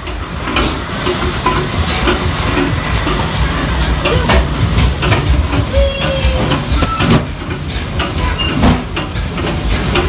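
A boy talking close to a phone microphone, his voice broken up and half covered by a loud steady hiss and low rumble.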